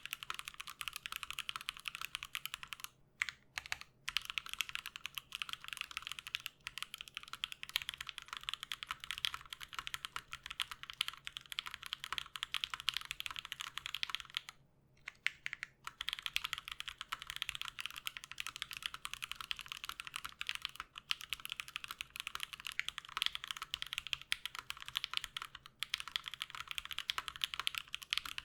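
Mechanical keyboard fitted with Everglide Aqua King V3 linear switches being typed on fast and continuously: a dense run of crisp keystroke clicks, with two brief pauses, about three seconds in and about fifteen seconds in.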